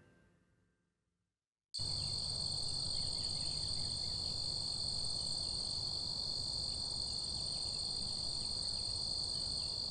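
Steady chorus of insects trilling, a continuous high-pitched sound over a low outdoor hiss, starting abruptly after about two seconds of near silence.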